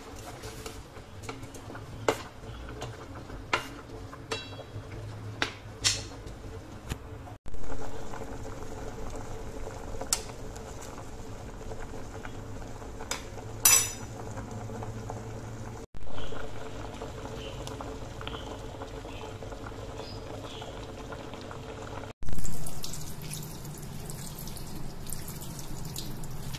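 Pasta water at a rolling boil in a stainless steel pot, bubbling steadily, with sharp taps of a wooden spatula against the pot as the fettuccine is stirred during the first several seconds. Near the end, cold tap water runs in a steady hiss over cooked fettuccine in a mesh colander in a steel sink.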